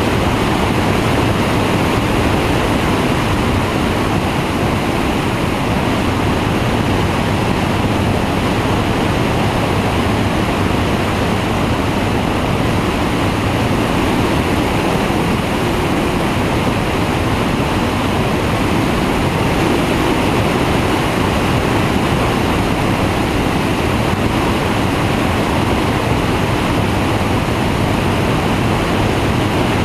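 Steady rush of airflow over a wing-mounted camera on a flexwing microlight trike in flight, with the drone of its engine and pusher propeller underneath.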